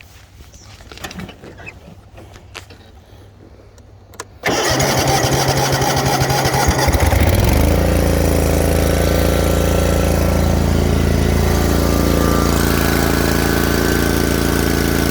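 After a few quiet seconds with faint clicks, the mower's 23 horsepower Kawasaki FX V-twin engine is started. It turns over for about three seconds, catches, and settles into steady running.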